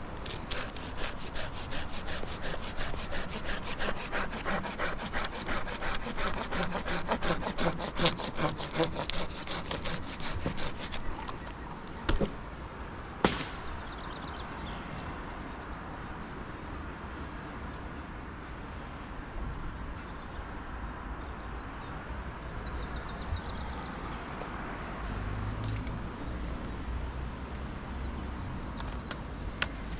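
Hand saw cutting through wood in quick, regular strokes for about eleven seconds, then stopping. Two sharp knocks follow about a second apart.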